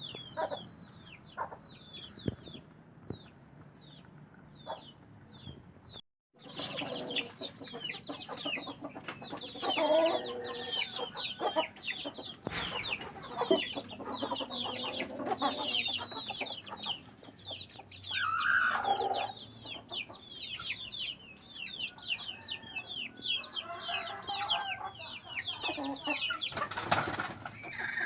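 Flock of kampung chickens: a constant stream of short, high, falling peeps, with hens' clucking calls over them. The sound cuts out briefly about six seconds in.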